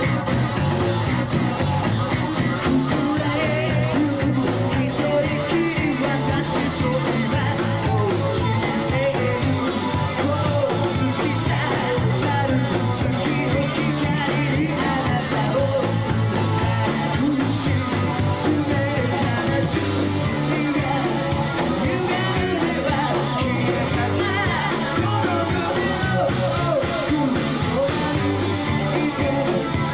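Live rock band playing, with a steady drumbeat under a lead singer singing into a microphone.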